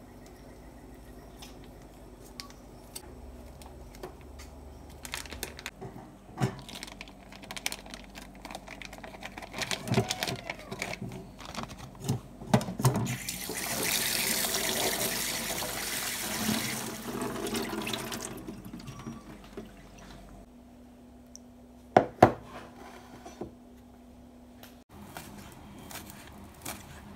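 Tap water running onto cooked udon noodles in a mesh strainer over a bowl in a steel kitchen sink: a steady splashing hiss for about four seconds midway. Around it are scattered clicks and knocks of handling, two sharp knocks a few seconds later, and near the end a knife tapping on a plastic cutting board as spring onions are chopped.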